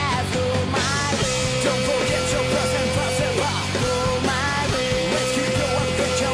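Background rock music, with two long held notes over the band.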